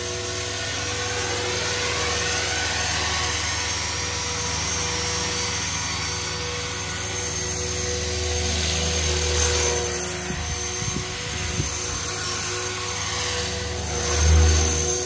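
Align T-Rex 500 electric RC helicopter flying, with a steady motor and rotor whine. It swells louder twice, most loudly near the end as the helicopter makes a close pass.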